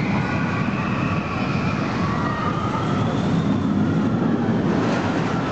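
Suspended looping roller coaster train running on its steel track: a steady rumble with faint, drawn-out whines that rise and fall in pitch.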